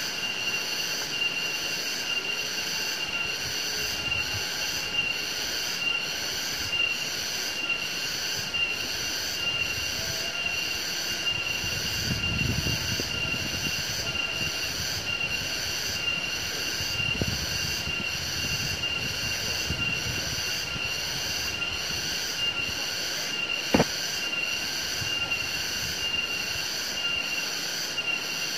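A chorus of insects, likely cicadas or crickets, trilling in a steady high-pitched drone that pulses about twice a second. There are brief low rumbles twice in the middle and a single sharp click a little before the end.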